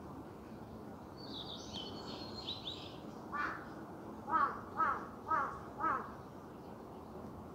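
A crow cawing five times in quick succession, about half a second apart, the first one fainter. Before the caws, a small bird sings a brief high trilling song over a steady outdoor background hiss.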